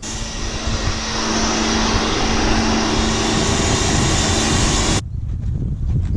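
Pressure washer spraying: a steady motor hum under the loud hiss of the water jet, starting abruptly and cutting off suddenly about five seconds in.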